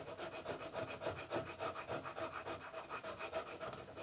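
Needle file rasping back and forth on a small hardwood intarsia piece, rounding its edges in quick, even strokes, several a second.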